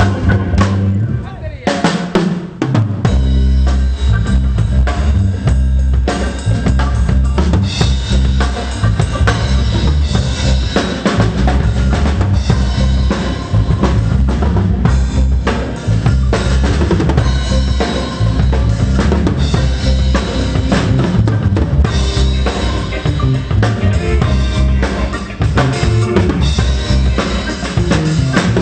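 Live pop band playing through the PA during a sound check, led by the drum kit with kick, snare and rimshot hits over a moving bass line. The bass drops out briefly about two seconds in, then the groove resumes.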